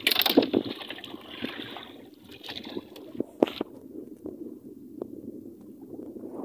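A freshly caught fish splashing and flopping in a plastic fish crate with a little water, with a few sharp knocks against the crate, the loudest about three and a half seconds in.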